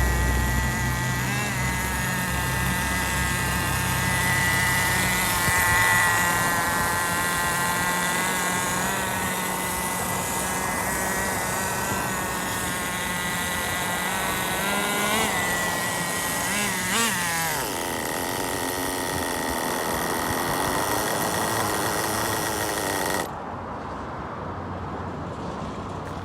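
Nitro RC truck's small glow-fuel engine idling steadily during its break-in tanks, a high, even buzz. The pitch wavers briefly about two-thirds of the way through. Near the end the sound drops suddenly to a quieter, duller hum.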